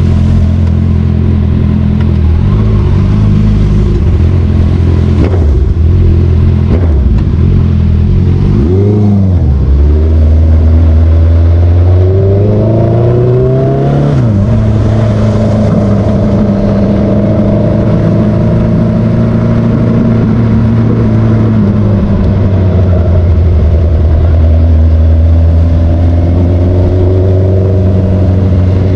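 Honda CBR motorcycle engine running under way, its pitch rising and falling briefly about nine seconds in. The revs then climb for a few seconds and drop suddenly about fourteen seconds in, as at a gear change, before it runs on steadily.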